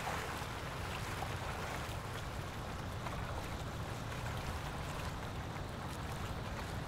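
Steady water ambience of small waves lapping on a loch's rippled surface, with a low rumble underneath.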